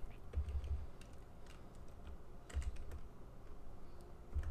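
Computer keyboard keys being pressed in a few short, scattered clusters of light clicks while a typo in a typed command is corrected.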